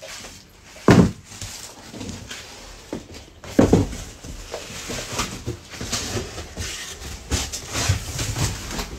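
Cardboard boxes being handled: scattered knocks and rustling, with two louder thumps about a second in and about three and a half seconds in.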